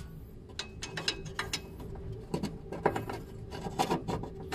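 Ratchet wrench clicking in irregular runs as the 12 mm nut on the brake hose bracket behind the front strut is worked loose.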